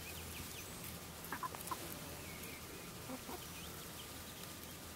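Chickens making a few soft, short clucks, a cluster about one and a half seconds in and another near three seconds.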